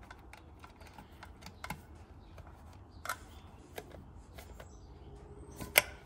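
Scattered small clicks and taps of a screwdriver, wire terminals and lever connectors being worked by hand inside a tractor instrument panel while a jumper wire is fitted, with one sharper, louder click near the end.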